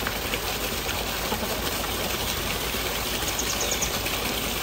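Steady rush of running water, like a stream, with a few faint high chirps about three and a half seconds in.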